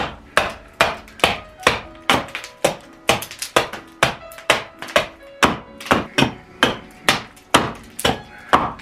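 A hand carving axe chopping the sides of a wooden kuksa blank stood on a chopping block, about two sharp chops a second in a steady rhythm, squaring the blank to size.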